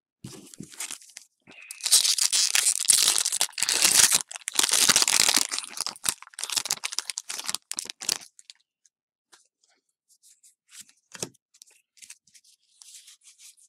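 Foil wrapper of a Pokémon TCG Cosmic Eclipse booster pack being torn open and crinkled, loudest over a few seconds early on, then fainter clicks and rustles as the cards are handled, with one sharp tap partway through.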